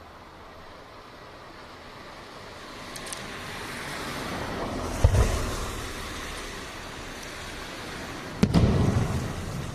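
Fireworks shells bursting overhead: two loud booms about three and a half seconds apart, the first preceded by a building hiss, the second followed by a rumbling echo.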